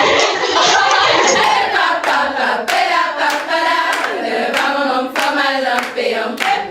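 A group of voices singing a song together with rhythmic hand clapping, about three claps a second, clearest from about a second and a half in.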